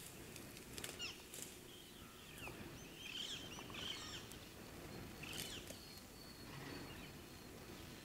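Faint outdoor ambience with scattered bird chirps, clustered about three to four seconds in and again near five and a half seconds.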